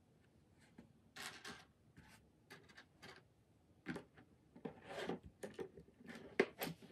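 Plastic LEGO pieces rustling and clicking as they are picked from a loose pile and pressed onto a build, with scattered short clicks and one sharper snap a little after six seconds in.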